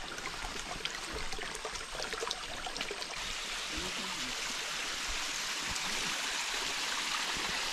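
Shallow jungle stream running over rock slabs, a steady wash of water that grows a little louder after about three seconds. A few faint clicks come in the first three seconds.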